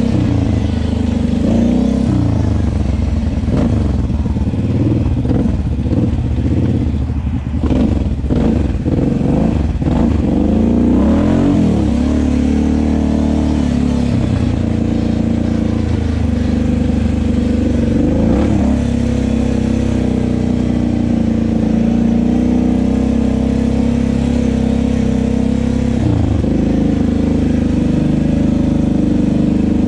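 Kawasaki KFX 700 ATV's V-twin engine revving up and down repeatedly for the first dozen seconds or so, then running more steadily, with another quick rise in revs near the end.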